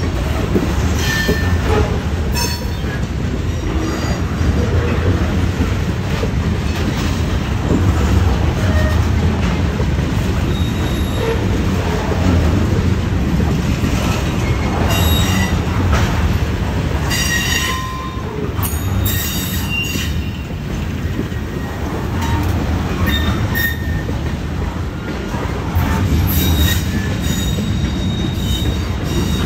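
Norfolk Southern freight train's covered hopper cars rolling past close by: a steady low rumble of wheels on rail, broken by short high-pitched wheel squeals and occasional clanks.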